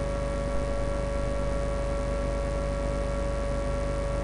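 A steady hum with one clear held mid-pitched tone over it and fainter steady tones above, unchanging throughout.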